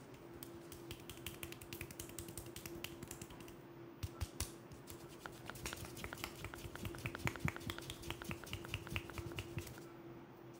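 Hands and fingertips tapping and patting on a man's forehead and scalp in a percussive head massage: a quick run of sharp little pats, louder in the second half at about four or five a second.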